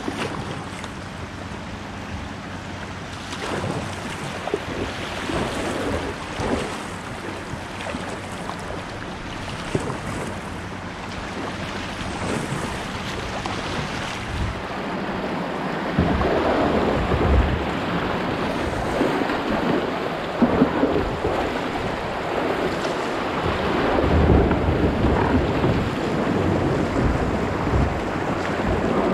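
Rushing river water in a rapid, heard from a kayak running it, growing louder about halfway through, with wind buffeting the microphone.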